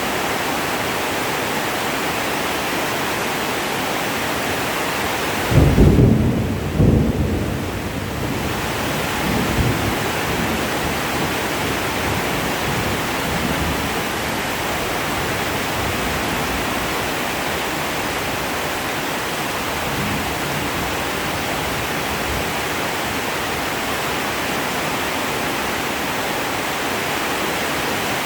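Heavy rain falling steadily, with a loud thunderclap about five and a half seconds in that rumbles low for a couple of seconds, followed by a weaker rumble about ten seconds in.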